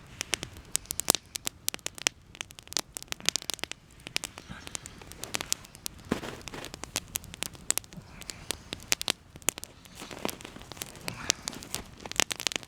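Wood campfire crackling, with many irregular sharp snaps and pops.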